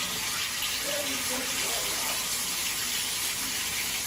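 Water running steadily from a tap in freshly plumbed household pipes, a continuous even hiss.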